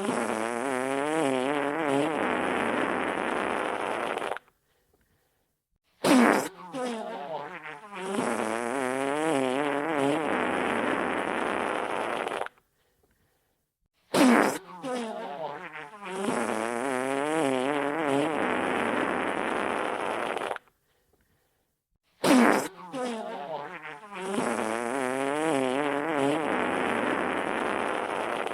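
Wet fart sound effect played on a loop: each fart opens with a sharp burst, then runs about four seconds with a wavering pitch before stopping dead. It repeats every eight seconds or so, with short silent gaps between.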